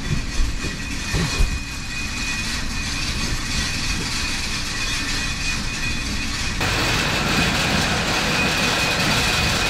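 Farm machinery running steadily: a low rumble with a thin, steady high whine over it. Two thumps come in the first second and a half, and about two-thirds of the way through the sound turns broader and a little louder.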